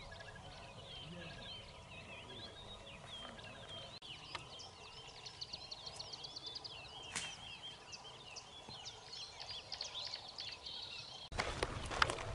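A chorus of small birds chirping and calling, with an occasional sharp click. Near the end the sound changes abruptly to a louder spell of crackling and clicking.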